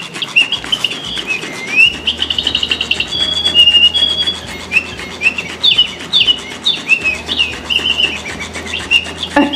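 Flapping-wing sparrow cat toy running: a quick, busy series of high bird chirps and tweets from the toy, over the fast ticking and low whir of its wing-flapping motor.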